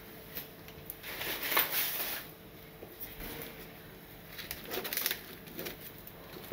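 Bamboo steamer tiers and a woven bamboo lid being set on a pot and adjusted by hand: light wooden knocks and scrapes, with a longer brushing scrape about a second in.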